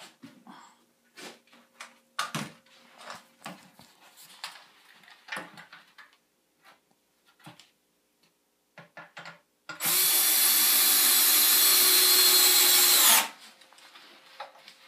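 Light knocks and clatter of pine 2x4 framing lumber being handled, then about ten seconds in a cordless drill runs steadily for about three seconds and stops.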